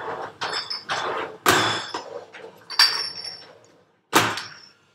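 Glass bottles knocking and clinking against each other and a hard surface, a few sharp separate strikes, some ringing briefly, as bottles are handled behind a bar counter.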